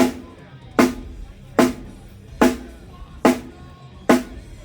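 A single drum on a drum kit struck six times at an even pace, about one hit every 0.8 seconds, each hit ringing briefly: one drum being checked on its own during a band's sound check.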